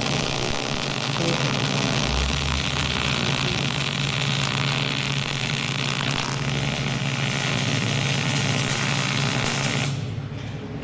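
Wire-feed (MIG) welder arc burning steadily as a bead is run along a joint, a continuous even hiss, cutting off about ten seconds in when the trigger is released.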